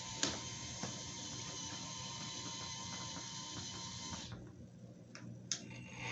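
A 4200 XL RC excavator running: a steady mechanical whine with a few light clicks. The whine drops away about four seconds in, and a single sharp click follows.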